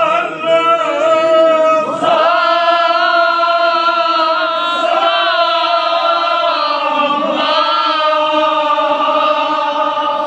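Male voices chanting a Kashmiri marsiya, a Shia elegy, in long held sung lines, with short breaks in the line about two seconds in and again around seven seconds.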